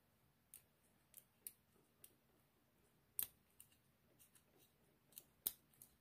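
Faint, scattered metallic ticks of a steel lock pick moving in the keyway of a small brass cross-keyway padlock held under a tension wrench, probing for pins. About a dozen light clicks, the loudest about three seconds in.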